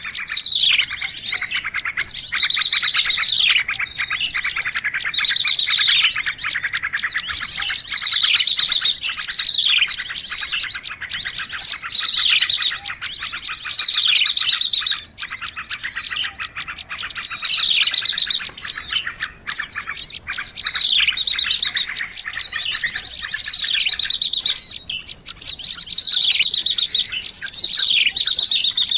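Small birds chirping and trilling rapidly and high-pitched, with falling sweeps that repeat about every two seconds. This is a lure call for trapping small birds.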